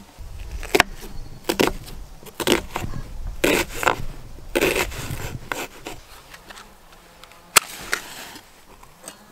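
A kitchen knife chopping an onion on a plastic cutting board: irregular knocks of the blade through the onion onto the board, grouped in quick pairs and triples. Near the end, a single sharp click as a match is struck.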